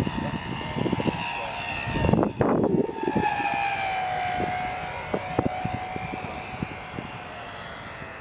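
Electric motor and propeller of a radio-controlled FMS P-47 model plane whining in flight; its pitch drops about three seconds in, then holds lower and fades. Wind gusts buffet the microphone throughout, loudest about two seconds in.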